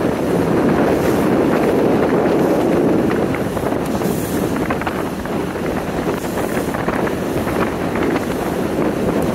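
Wind rushing over the microphone on a motorboat under way, mixed with the boat's running noise and water splashing against the hull, steady with scattered small splashes.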